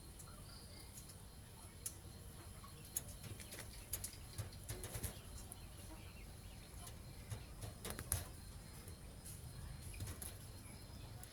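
A bird's wings flapping and rustling in short, scattered bursts over a faint low hum.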